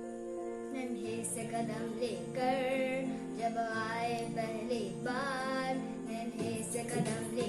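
A song: steady held instrumental chords, with a high singing voice carrying a melody over them from about a second in.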